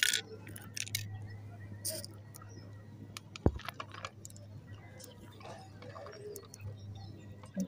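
A few light crackles of crisp fried jhuri bhaja being scattered onto yogurt-filled fuchka shells near the start and again about two seconds in, a single dull thump about three and a half seconds in, and scattered faint ticks over a steady low hum.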